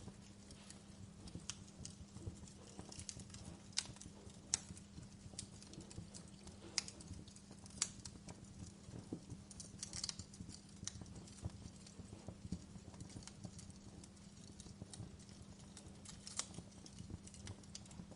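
Wood fire crackling, with irregular sharp pops over a low steady rumble; a handful of louder pops stand out in the middle.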